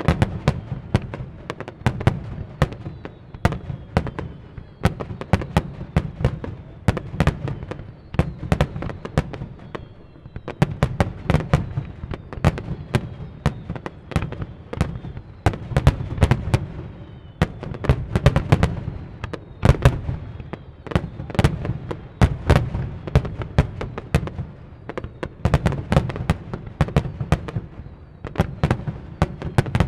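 Aerial fireworks display: a rapid, continuous barrage of overlapping shell bursts and bangs, with faint falling whistles among them.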